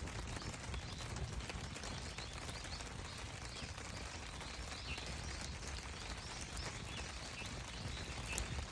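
Wood campfire burning, crackling with frequent small sharp pops over a steady low rush of flame.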